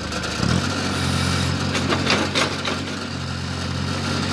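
Skid steer engine running steadily, picking up speed about half a second in, with a few short knocks near the middle.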